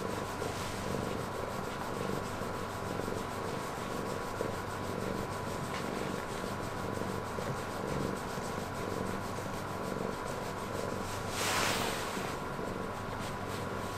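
Domestic cat purring steadily while a hand strokes and scratches its fur, with soft rubbing of hand on fur throughout. A louder rustle of rubbing comes about eleven and a half seconds in.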